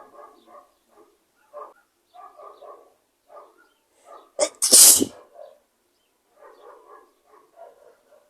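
A person's single loud, forceful sneeze about halfway through, with short, quiet vocal sounds before and after it.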